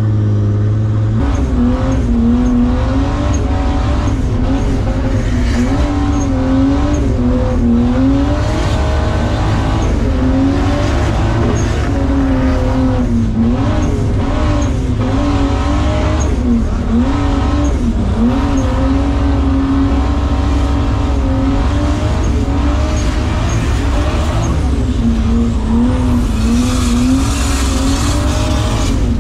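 Drift car's 2JZ inline-six engine heard from inside the cabin, its revs swinging up and down without pause through a drift run on a wet track, with a hiss of tyres and spray that grows louder near the end.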